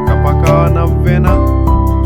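Instrumental background music with held notes, a steady bass and a regular beat.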